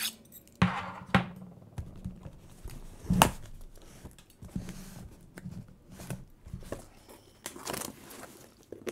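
Packing tape on a cardboard box being slit and torn open with a letter opener: intermittent scratching and tearing, with scattered knocks against the cardboard and one sharp knock about three seconds in.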